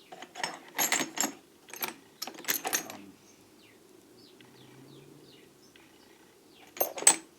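Steel lathe cutter bits clinking and knocking together as they are handled: several sharp clicks in the first three seconds and two louder ones near the end. Faint short bird chirps come in the quieter stretch between.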